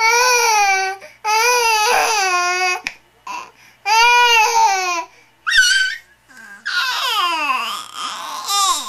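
A baby letting out a series of loud, high-pitched wailing cries, about five of them with a wavering pitch, the last one longer and sliding down into fretful crying. It is a baby turning from laughing to sulky, grumpy crying.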